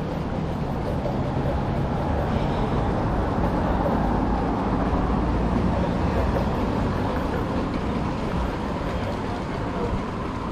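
Steady low rumble and hiss of city vehicle traffic, with no single event standing out.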